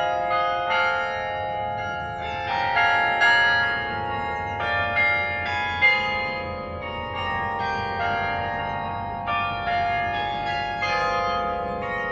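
Berlin Carillon's tower bells played by hand, ringing out a melody: struck bell notes follow one another in quick succession, each ringing on under the next.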